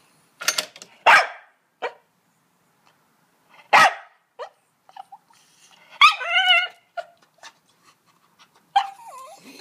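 Small white fluffy dog barking: a few short, sharp barks in the first four seconds, then a longer, wavering whine-bark about six seconds in and a shorter one near the end. The barking is a reaction to hearing the word "motor".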